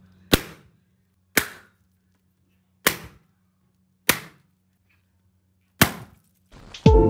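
Latex party balloons being popped one after another with the point of small scissors: five sharp pops, spaced about one to one and a half seconds apart. Music starts just before the end.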